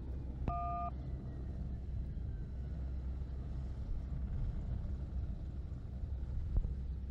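F-35B jet engine running on a carrier flight deck, heard as a steady low rumble. A short electronic beep of two steady tones comes about half a second in, and a single dull thump near the end.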